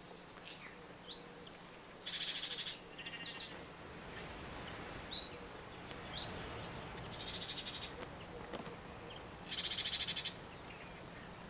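Small garden songbirds singing and calling: high, varied twittering phrases broken by rapid trills, the loudest trill about ten seconds in.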